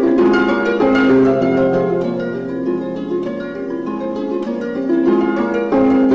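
Background music: a gentle melody of plucked string notes, harp-like, overlapping and fading one into the next.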